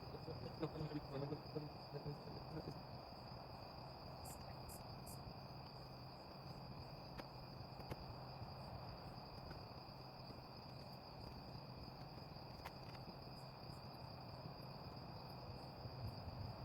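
Night-time cricket chorus: a steady high trilling that does not let up, over a faint low hum.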